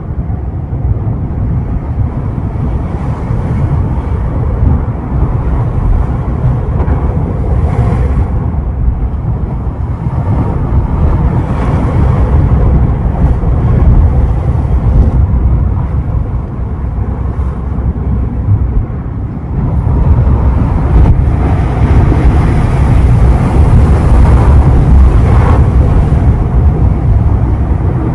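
Ocean surf: waves breaking and washing up the shore in a steady deep rumble, swelling with each surge and loudest and hissiest from about twenty seconds in.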